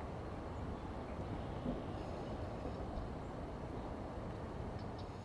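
Steady wind, a low rumbling hiss, with a few faint short high chirps.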